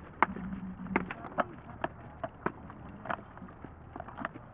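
Armoured sparring: sword blows striking shields, helmets and armour, a rapid irregular series of sharp knocks and clacks, about a dozen, the loudest about a quarter of a second in.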